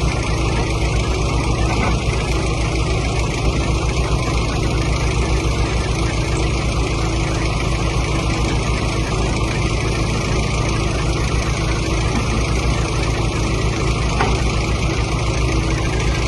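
Excavator's diesel engine running steadily with a deep, even rumble.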